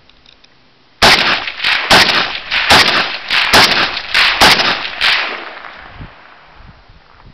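Romanian WASR-10 AK-pattern rifle in 7.62×39 mm firing a rapid semi-automatic string of shots, about two to three a second. The string starts about a second in and stops around five seconds. The reports echo and die away over the following two seconds.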